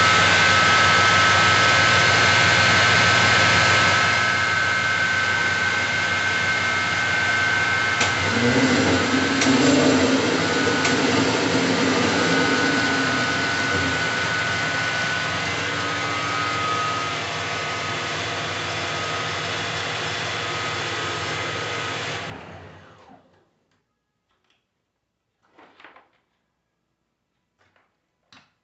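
Alternator test bench spinning a freshly rebuilt 24-volt Bosch alternator with new bearings: a steady machine whine made of several tones, which shift briefly about eight to fourteen seconds in. The bench is switched off about 22 seconds in and runs down within a second, leaving a few faint clicks.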